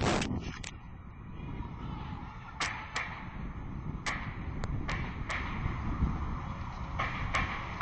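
Pistol gunshots heard through a cell phone's microphone: about nine sharp cracks at irregular intervals, some in quick pairs and some up to two seconds apart.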